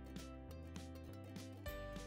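Background music: a light instrumental track with held notes over a steady bass and a regular beat about three times a second.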